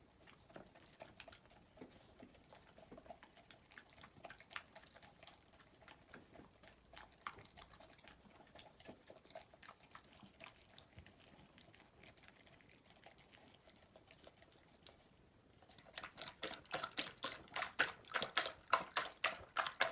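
An animal eating from a dish: faint scattered chewing and licking clicks. About three-quarters of the way in, these change to steady lapping, about three or four laps a second, growing louder.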